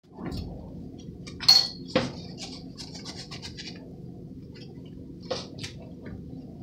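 Handling noises as work gloves are pulled on and adjusted: rustling and small ticks, with sharp knocks about a second and a half in (the loudest), again at two seconds, and twice near the end, over a steady low hum.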